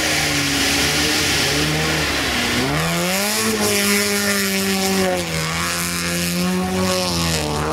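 Lada Niva's engine revving hard under load as it ploughs through a muddy water pit, with a hiss of water and mud spray at first. The engine pitch dips about two and a half seconds in, then climbs and holds high, and drops back about five seconds in.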